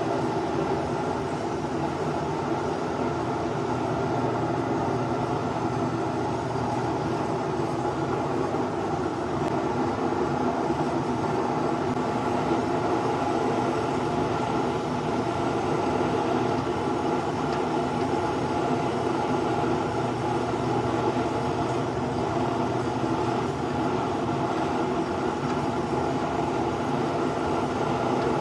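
Propane forge built from an ammo can, its burner running steadily with a constant rumbling hiss while a blade heats in the flame.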